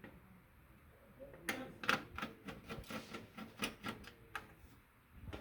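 Irregular series of sharp clicks and light metal rattles from a screwdriver working out the screws that hold a desktop computer's motherboard in its steel case. The clicks start about one and a half seconds in and die away near the end.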